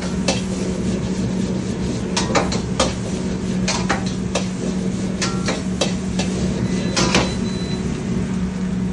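A metal spatula clanking and scraping against a wok as fried rice is stir-fried, in irregular knocks, over a steady low hum from the high-heat wok burner or kitchen exhaust.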